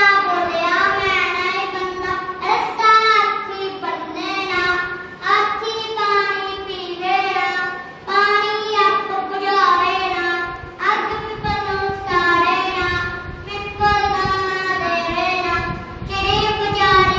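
A child singing solo and unaccompanied, in long melodic phrases with held, wavering notes.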